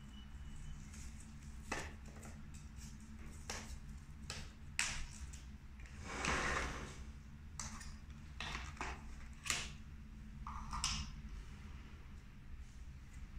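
Handling noise from assembling a corded stick vacuum: scattered light plastic clicks and knocks as the parts and power cord are set down and fitted together, with a brief rustling swish of the cord about six seconds in, over a faint steady low hum.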